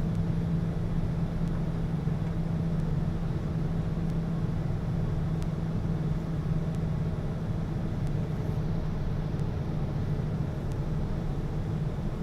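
Steady low drone of an airliner's engines, with a constant low hum that holds the same pitch throughout.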